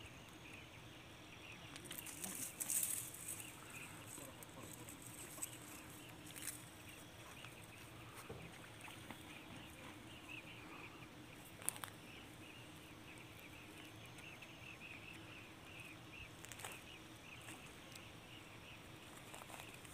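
Faint rural outdoor ambience with soft, repeated distant bird calls throughout. A brief rustle about two to three seconds in is the loudest moment, and a sharp click comes near the middle.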